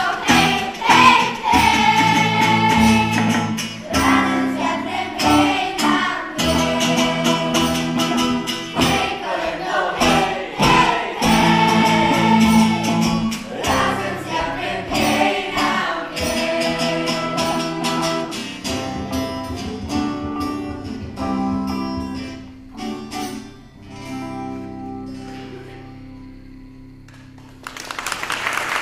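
A live band plays a song with singing and plucked guitar. The final chords die away over the last few seconds, and audience applause starts just before the end.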